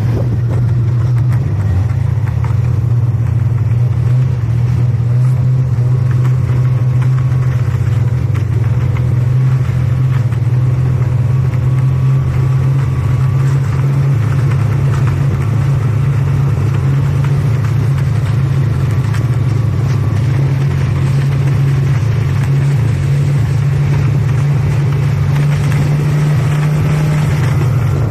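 Snowmobile engine running under way at a loud, steady, nearly unchanging pitch.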